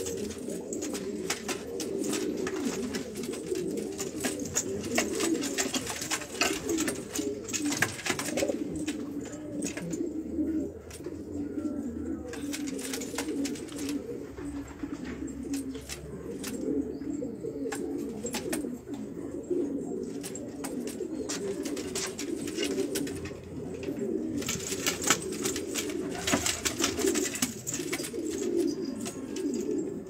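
Several domestic pigeons cooing continuously, their low coos overlapping one another, with scattered sharp clicks and scrapes among them.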